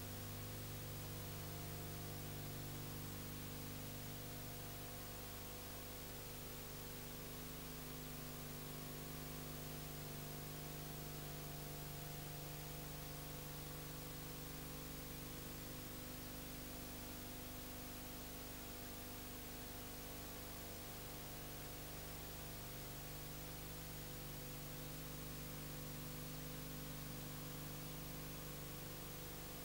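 Steady electrical hum under a constant hiss, with nothing else heard: the empty sound track of a silent old home-movie transfer.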